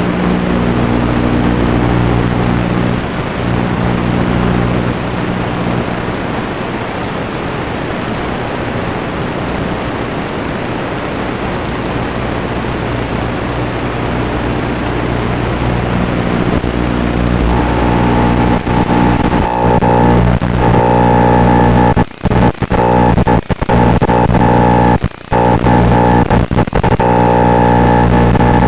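Steady hiss of static from an analog FPV video receiver's audio channel. Over it run sustained, unchanging droning tones that shift to a new set about 17 seconds in, and the sound cuts out briefly a few times near the end.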